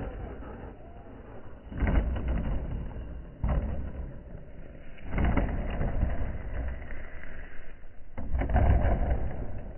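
An RC short-course truck tumbling down a grassy slope after a jump, heard as four loud surges of noise a second or two apart. Underneath is a low, steady rumble of wind on the microphone.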